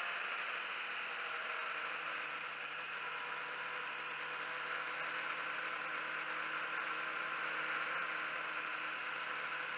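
Honda CBR1000RR's inline-four engine running at a steady speed, its pitch unchanging, heard from an onboard camera under a steady rush of wind and road noise.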